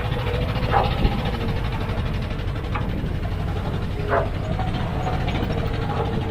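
Heavy earthmoving machinery's diesel engine running steadily with a constant whine above the rumble. A few short sharp sounds come on top: one about a second in, one near the middle and one after four seconds.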